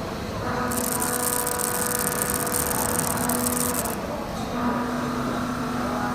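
Pramet SBN10 high-feed milling cutter cutting metal in a CNC machining centre: a steady pitched whine with a bright hiss over it through the first pass. The cut breaks off briefly about four seconds in, and a second pass follows with the whine alone.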